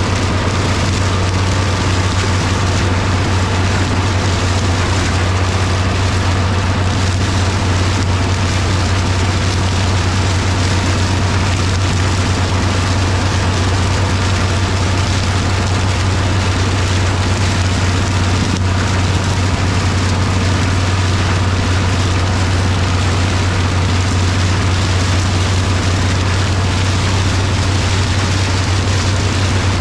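International 1256 tractor's turbocharged six-cylinder diesel running steadily under load with a deep, unbroken hum. Over it comes the rushing hiss of the PTO-driven International stalk chopper's flails shredding standing corn stalks.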